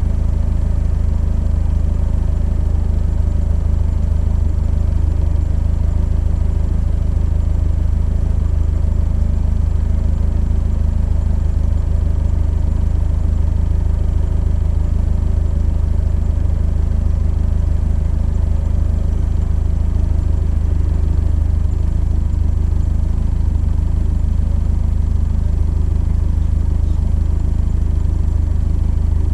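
Engine of a Seven-style open-wheeled sports car idling steadily at a standstill, a low, even drone that holds unchanged.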